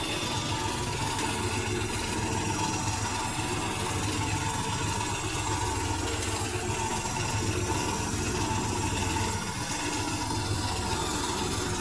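Electrolux W555H professional washing machine running: a steady low motor hum, with a higher whine that comes and goes.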